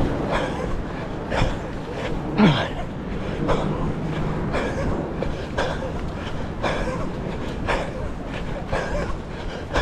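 A runner's heavy breathing, one hard exhale about once a second, with wind rumbling on the microphone throughout. A short falling voice-like sound comes about two and a half seconds in.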